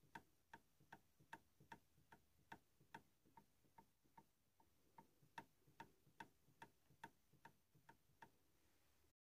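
Clarinet keys closing over and over, the pads shutting on the tone holes with faint clicks about two and a half times a second, each with a short ring: the pad noise of Buffet Crampon E13 clarinets with standard double-skin pads.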